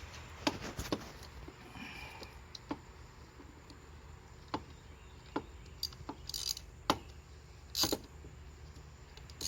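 Scattered light metallic clicks and taps from hand tools as a new spark plug is threaded into the plug well of a supercharged V8, with a few sharper clinks near the end.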